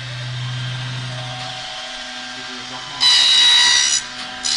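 Three-in-one CNC bending machine cutting grooves into the back of the metal strip: a steady machine hum, then the slotting cutter's loud high-pitched whine about three seconds in, lasting about a second, starting again just before the end.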